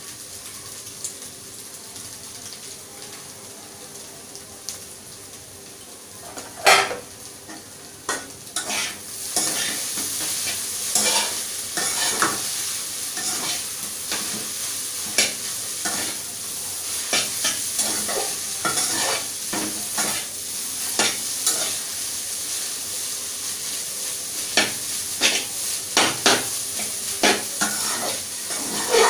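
Chow mein noodles and vegetables sizzling in a wok on a gas stove while being stirred and tossed, with frequent short scrapes and knocks against the pan. The sizzle is quieter for the first several seconds and grows louder from about eight seconds in, with one sharp knock near seven seconds.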